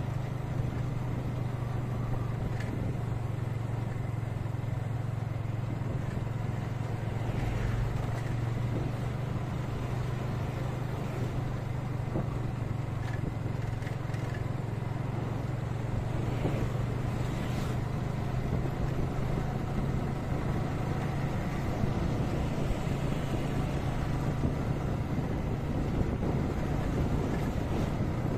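Motorcycle engine running at a steady riding speed, a constant low hum with wind and road noise, heard on board the moving bike.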